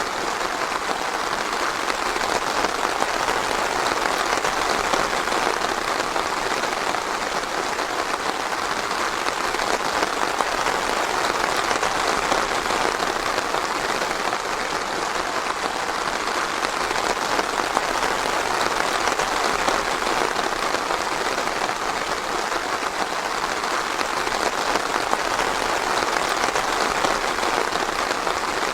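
Steady rain falling, an even dense patter with no thunder.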